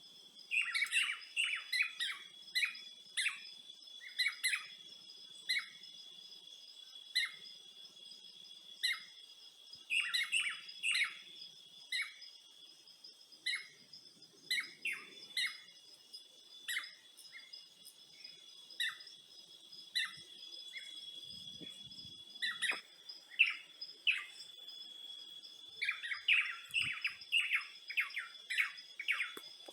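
Wild birds chirping in many short calls, busiest near the start and near the end, over a steady high-pitched insect buzz.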